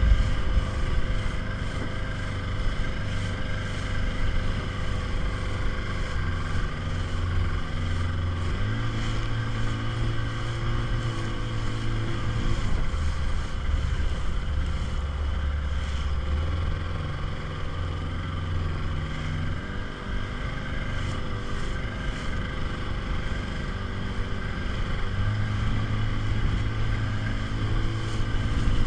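Small motorboat's outboard engine running under way, its note shifting up and down a few times as the speed changes.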